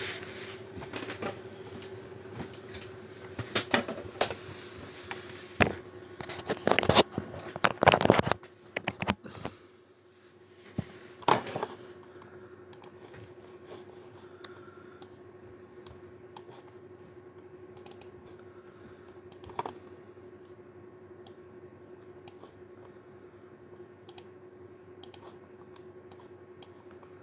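Light irregular clicks and taps, as of typing, over a steady hum. Louder knocks and handling bumps fill roughly the first twelve seconds.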